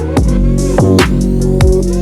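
Electronic dance music with a heavy beat, bass drops and falling synth sweeps.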